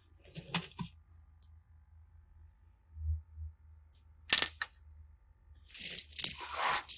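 Handling noises from small objects: a few light clicks near the start, one sharp click a little over four seconds in, then a quick cluster of clicks and scraping near the end.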